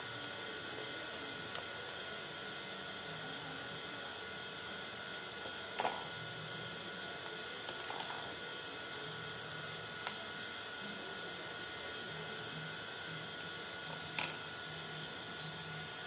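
Electric hand mixer running steadily with a high motor whine, whipping instant coffee, sugar and water into dalgona foam, with a few light knocks.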